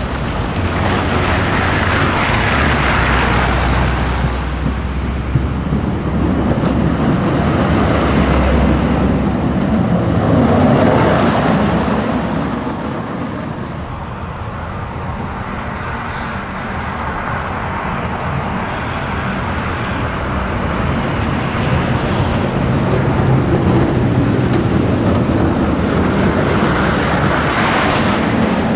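Heavy vehicles driving past on a snow-covered, slushy road: a steady rushing of tyres in slush over a low diesel engine drone. It swells three times as vehicles go by, first an articulated bus, last a snowplow truck pushing snow with its front blade.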